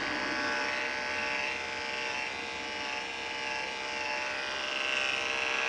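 Andis 5-speed corded dog clipper, with an Oster attachment comb over a #10 blade, running with a steady electric hum as it is worked through the dog's coat. Its upper tone swells and fades slightly as the comb moves through the hair.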